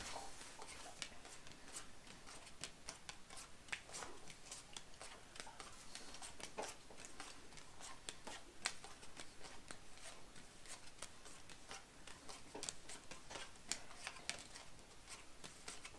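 Mesozooic game cards being dealt one by one onto a cloth-covered table: faint, irregular soft flicks and slaps of card on card.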